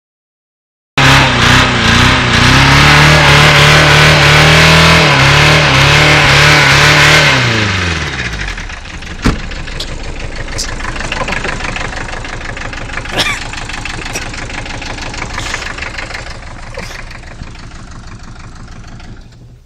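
VW Caddy diesel engine held at high revs, then dropping back to a rough idle with an even, rhythmic knock that slowly fades. The owner takes the engine to be running on three cylinders, possibly from a valve fault.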